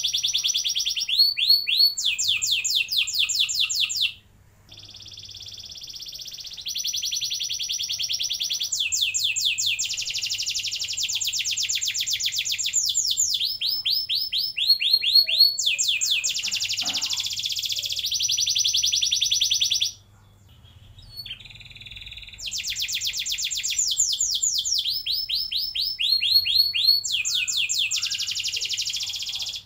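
Red-plumaged domestic canary singing a long rolling song: fast trills and runs of quick repeated whistled notes, one phrase after another. It breaks off briefly about four seconds in and again for about two seconds about two-thirds of the way through.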